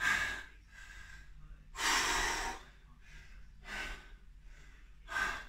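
A man breathing hard from the strain of a heavy dumbbell shoulder-press set, with four forceful breaths, the longest and loudest about two seconds in.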